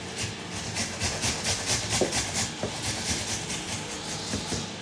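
A peeled apple being grated on the coarse side of a metal box grater: rhythmic rasping strokes, about four a second.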